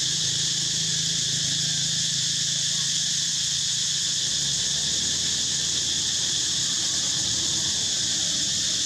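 Steady, high-pitched insect chorus that holds at one even level throughout.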